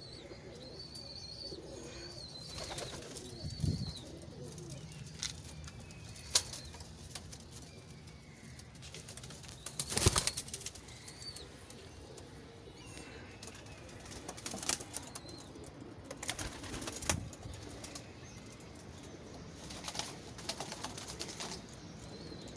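Sherazi pigeons in a wire-mesh loft: scattered wing flaps and sharp knocks, the loudest about ten seconds in, with a few high chirps in the first four seconds.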